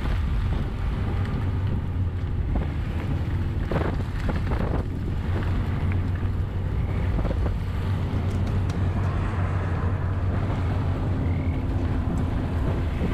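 Mazda Bongo van driving slowly on a wet, puddled road: a steady low engine drone with tyre noise, and a couple of short splashes through puddles about four seconds in.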